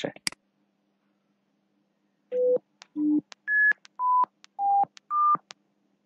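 A mouse click, then six pure computer beeps from the Windows Beep() function in a C program, each about half a second long with short gaps, stepping through 500, 300, 1700, 1000, 800 and 1200 hertz in turn.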